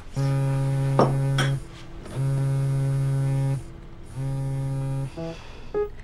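Smartphone vibrating on a table in three long buzzes, each over a second, with short pauses between them. A couple of light knocks come about a second in.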